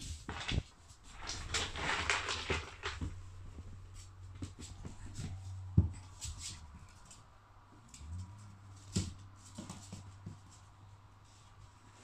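Young puppies scrambling about on a wooden floor: scattered claw clicks and light knocks, with a stretch of rustling about a second in and a sharper knock about halfway through.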